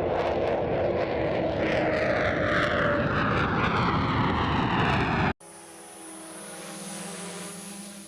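Two sound-effect clips played back to back. First a loud rushing, engine-like pass-by whose pitch falls steadily, cut off abruptly about five seconds in; then a quieter steady hum with a thin high whine.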